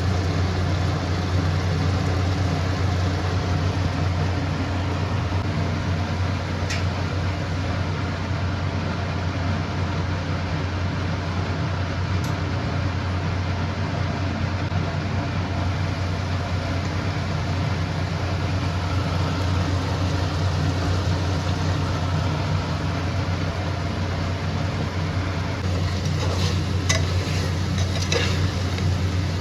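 Mutton curry sizzling in a pan over a steady low mechanical hum, with a few utensil clinks against the pot near the end.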